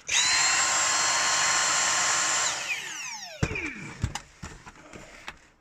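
Dyson V6 cordless vacuum cleaner's motor switching on and running steadily with a high whine for about two and a half seconds, then switched off and spinning down with a falling whine. A few light clicks of handling follow.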